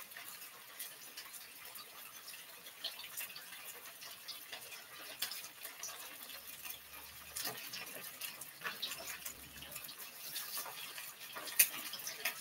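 Hot cooking oil sizzling and crackling in a wok as chicken breast pieces fry, with many small scattered pops. A single sharp click stands out near the end.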